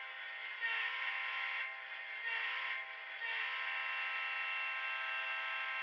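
A diesel locomotive horn sample played by the ESU LokSound sound decoder in an HO scale Kato C44-9W model, through its small on-board speaker. The horn is a chord of several steady notes, thin and without bass, sounded as several blasts run together with a long final one.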